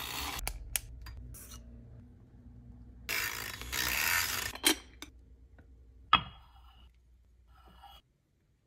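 Handheld battery milk frother whisking milk into coffee in a ceramic mug: a hissy, whirring stretch about three seconds in that lasts a second and a half. A few clicks follow, then a sharp knock about six seconds in.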